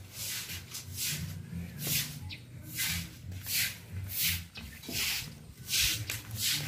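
Footsteps of a person walking, a soft scuffing step about every two-thirds of a second.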